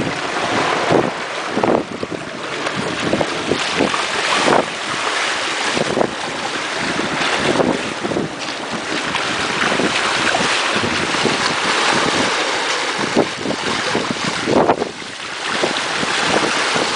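Wind buffeting the microphone over the rushing, splashing water along the hull of a boat moving fast through the sea.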